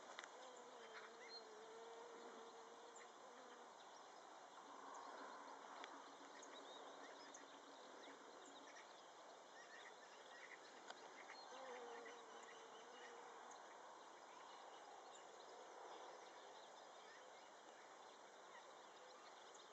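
Quiet open-air ambience with scattered faint high ticks; twice, a flying insect buzzes past with a faint wavering hum lasting a couple of seconds, near the start and again past the middle.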